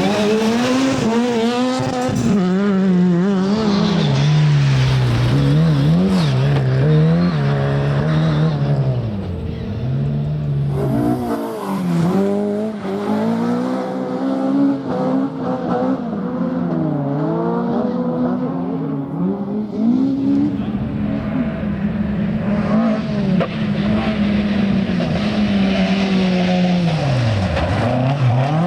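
Rally car's engine driven hard through a stage, the revs climbing and falling over and over with gear changes, lifts and braking. The engine note drops sharply twice, about eleven seconds in and again near the end.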